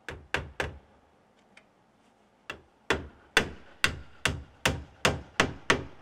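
Hand hammer striking, nailing larch roof shingles onto wooden battens. It starts with three quick blows, then after a pause comes a steady run of about nine sharp blows, a little over two a second.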